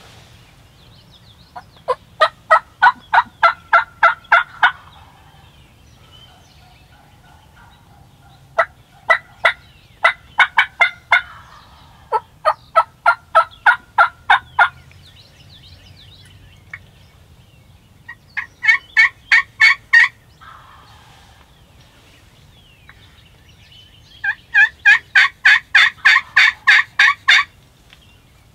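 Wild turkey hen yelping hard in five runs of evenly spaced notes, about four a second, each run lasting two to three seconds. The last run is the loudest.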